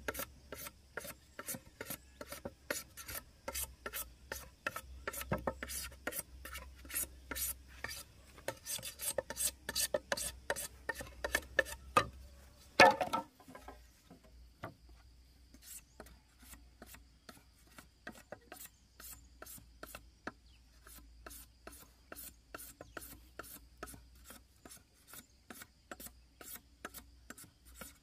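Rhythmic rasping strokes of a hand tool working wood, about three a second. A single loud knock comes about halfway through, and the strokes are quieter after it.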